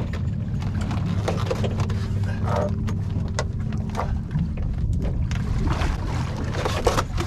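Steady low rumble on a small boat at sea, with scattered knocks and rustles as a landing net is handled and a big skate is laid on the deck.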